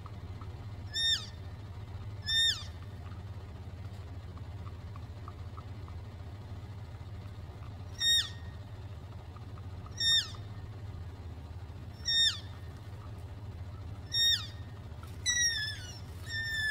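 Elk calling in distress during a bear attack on a calf: short, high-pitched squealing calls, each dropping in pitch at the end, about seven of them at uneven intervals, then a longer, wavering run of calls near the end.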